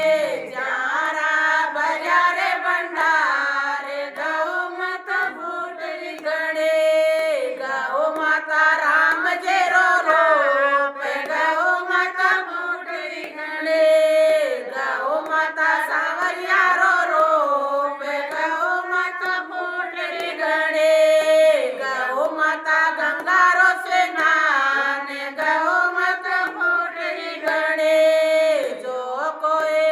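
Devotional chant sung in a high voice: a slow, gliding melody without drums, with a phrase ending on a long held note that comes round about every seven seconds.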